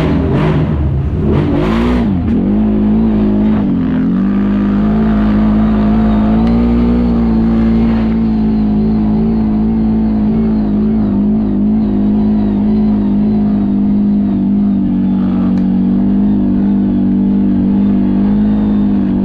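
CFMoto CForce 1000 ATV's V-twin engine revving, its pitch rising and falling for the first few seconds, then running at a steady speed with an even drone.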